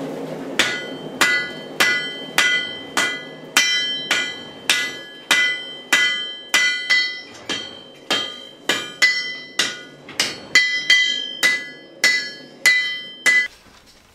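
Blacksmith's hand hammer striking red-hot iron on an anvil, a steady run of ringing blows a little under two a second, which stops shortly before the end.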